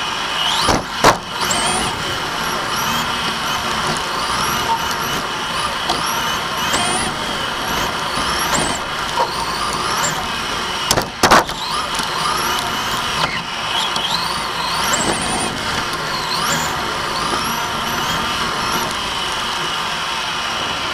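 Onboard sound of a Team Associated TC5 electric RC touring car racing: the motor and drivetrain whine climbs in pitch again and again with each burst of throttle, over a steady hiss of tyres and air. Sharp knocks come about a second in and again about halfway through.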